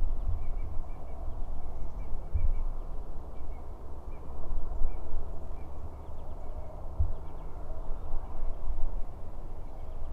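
Wind rumbling and buffeting on the microphone outdoors, with a few heavier thumps. Faint, short, high chirps repeat through it, like a small bird calling.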